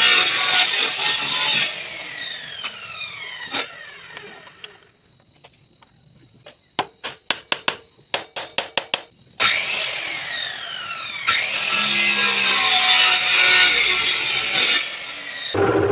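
Drum sander sanding wood, a steady high motor whine under a loud grinding rasp. The rasp drops away after a couple of seconds, a quick run of sharp clicks follows, and the loud sanding starts again about halfway through.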